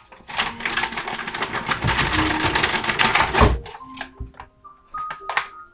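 Frozen berry pieces rattling and clattering out of a crinkling plastic bag into a glass blender jar for about three seconds, ending in a low thump, followed by a few lighter knocks.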